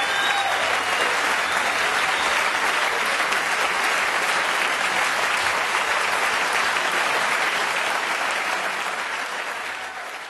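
Audience applauding steadily, an even clatter of many hands clapping. The last held notes of the ensemble die away just as it begins, and the applause fades out near the end.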